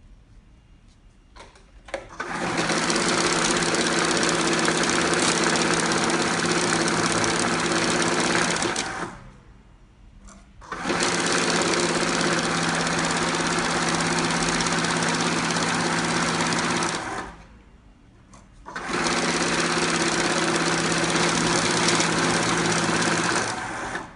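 I-Hunter 2.0 two-pocket banknote counting machine counting notes: three runs of steady motor whirring with the rush of bills feeding through, each lasting several seconds, with short pauses between. A few clicks come just before the first run.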